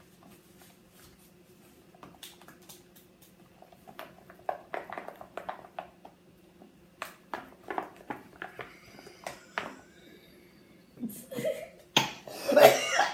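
Spoon clicking and scraping in a bowl as slime is mixed: scattered short clicks, thickest in the middle. A voice comes in near the end.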